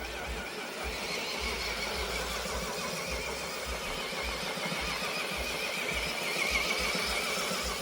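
Electric motor and gear drivetrain of an Axial SCX10 III RC crawler whining steadily under load, its pitch wavering, as it drives with the dig engaged (one axle locked). It cuts off suddenly at the end.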